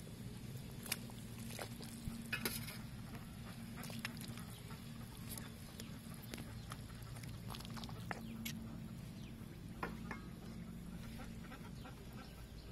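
A large pot of oxtail soup boiling: a steady low bubbling rumble with scattered sharp clicks and pops.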